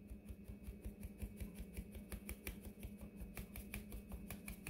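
Hand-held plastic mesh sieve being shaken to sift flour into a bowl: a rapid run of light ticks, several a second, over a faint steady hum.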